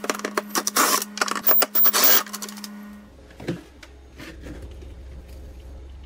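A cordless drill/driver runs for about three seconds, backing out a Phillips screw, with rapid clicking over a steady whir. A single knock follows, with a few faint clicks.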